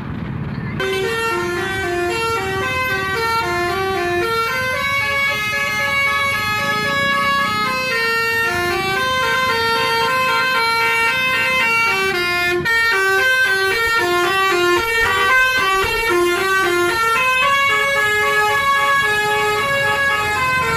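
Indonesian bus 'telolet' multi-tone horn playing a melody. It steps quickly from note to note, starting about a second in and running on without a break.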